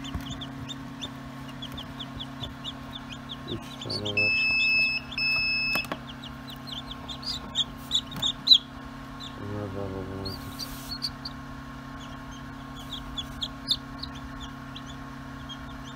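Newly hatched chicks peeping rapidly and continuously over a steady low machine hum. About four seconds in come two long electronic beeps, each just under a second.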